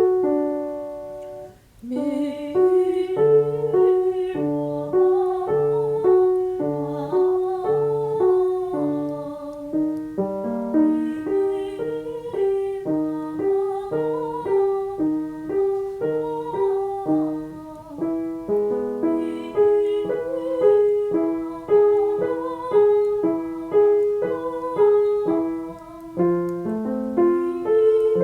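Piano playing a vocal warm-up accompaniment: a short repeated figure with a steady pulse, moving up to a higher key about ten seconds in and again near the end. A soprano sings a staccato exercise over it.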